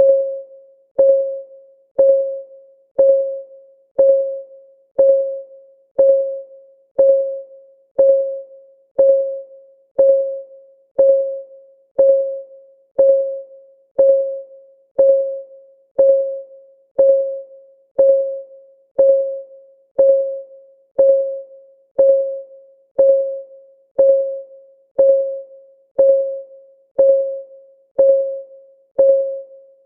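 Countdown timer's ticking-clock sound effect: a short pitched tick once a second, each one ringing briefly and fading, in a steady unbroken rhythm.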